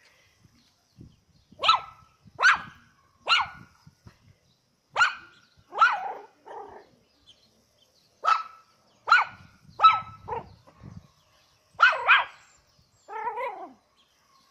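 Maltese–Shih Tzu puppy yapping: short high-pitched barks in clusters of three or four with pauses between, about a dozen in all, the last one longer and falling in pitch.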